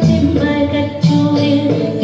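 Folk-dance music: a singing voice over instrumental backing.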